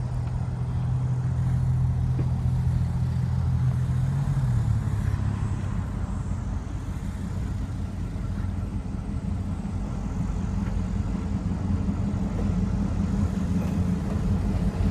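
Diesel locomotives drifting closer with a steady low engine rumble. The engine note steps down about four and a half seconds in, as from a throttle change, then holds steady.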